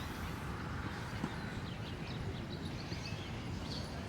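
Outdoor park ambience: a steady low background rumble with a few faint, brief high chirps of small birds.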